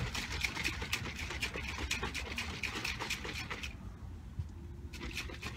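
A plastic shaker bottle being shaken hard to mix a pre-workout drink: a quick, even rattle and slosh that stops a little over halfway through.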